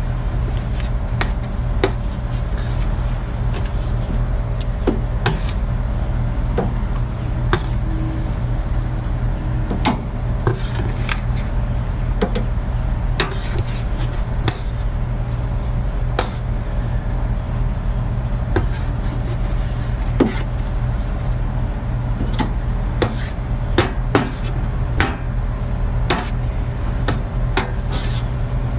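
Irregular sharp clicks and knocks of meat and utensils handled on a charcoal smoker's metal grill grates, over a steady low hum.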